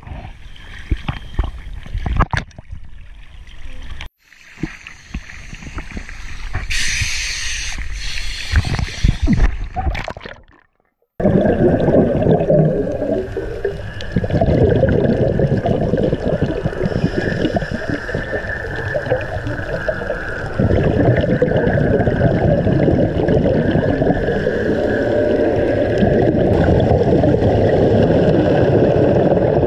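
Seawater sloshing and splashing around a GoPro held at the surface, then after a brief cut-out a dense, muffled underwater rush of sound as the camera goes under, with divers' scuba bubbles rising.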